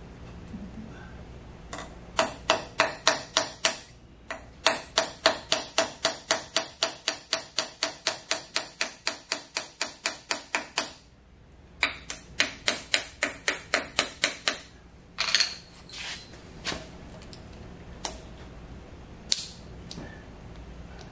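Small hammer tapping rapidly on steel at the end of a Monarch 10EE lathe spindle, about five ringing metal strikes a second in three long runs separated by short pauses, then a few scattered single taps.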